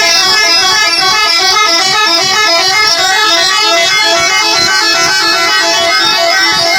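Telolet bus horns, several multi-tone horns playing their stepping tunes over one another in a horn battle. The notes switch rapidly and sound without a break.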